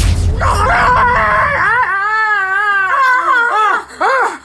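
A woman screaming in a high voice: one long wavering scream, then several short shrieks that rise and fall. Music plays under the start and drops out partway in.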